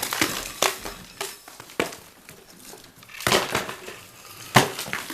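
Broken brick and plaster crunching and clattering as a wall is broken open, in irregular knocks and scrapes, the sharpest one about four and a half seconds in.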